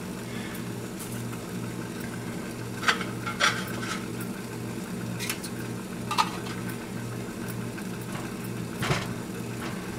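Homemade double-wall beer-can alcohol stove burning with a soft hiss under a steady low hum. About three seconds in, two metal clinks as a titanium mug is set down on the wire-mesh pot stand, then a few small clicks.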